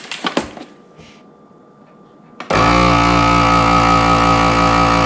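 A few clicks as a countertop vacuum sealer's lid is pressed shut, then about two and a half seconds in its vacuum pump starts and runs steadily, drawing the air out of the bag.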